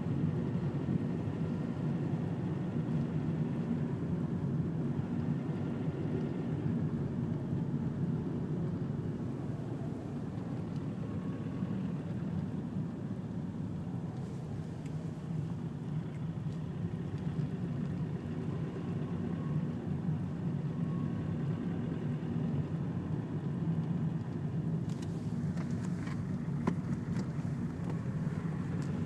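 Steady low engine and road noise of a car driving slowly in traffic, heard from inside the cabin. A few light clicks come near the end.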